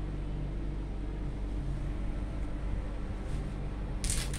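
Steady low electrical hum from an idle ATM and its booth equipment, with a short hiss about four seconds in.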